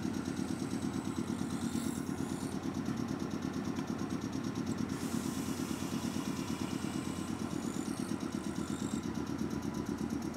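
Meitetsu 6000 series electric train standing at the platform, its onboard equipment giving a steady low hum with a fast, even pulse.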